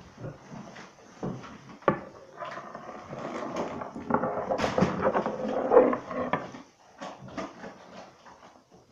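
Clicks and knocks with rustling, as items are handled at an open refrigerator, the busiest stretch in the middle with a sharp click about two seconds in and another about halfway through.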